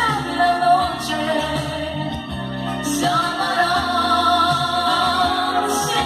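1980s Spanish-language pop ballad playing: sustained sung vocals over a band with steady bass and held keyboard chords.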